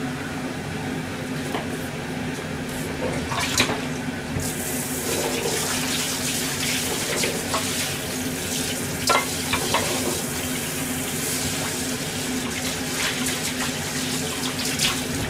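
Kitchen tap turned on about four seconds in and running steadily into the sink, with a few short knocks, over a steady low hum.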